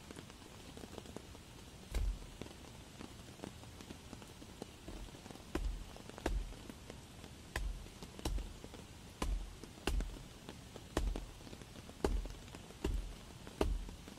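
Machete chopping into a damp fallen log: about a dozen dull, thudding blows, one about two seconds in, then a steady run of roughly one a second from about five seconds in, over a steady background hiss.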